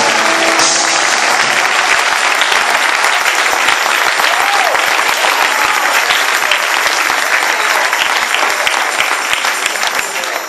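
Church congregation applauding: loud clapping from many hands.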